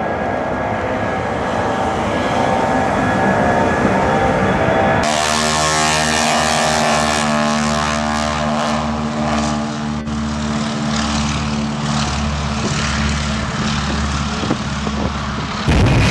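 Three aircraft in quick succession, joined by abrupt cuts. First, a four-engined jet airliner running at takeoff power on a wet runway. About five seconds in, the buzzing piston engine and propeller of an ultralight amphibious plane at full power, its pitch easing down slightly as it passes. Near the end, the loud jet noise of an Ilyushin Il-76 on a wet runway.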